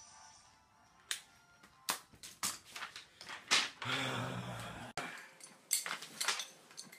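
Handling noise: a string of sharp taps and knocks, with a short steady low hum about four seconds in.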